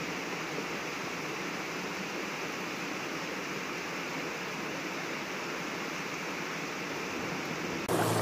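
Muddy flash-flood torrent rushing past, a steady, even rush of fast-moving water carrying debris. Near the end it cuts to a louder rush with a low hum.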